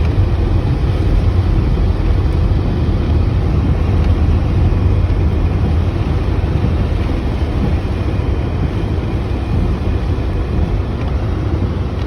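Ford Escape driving on the road: a steady low rumble of road, tyre and engine noise heard from inside the cabin.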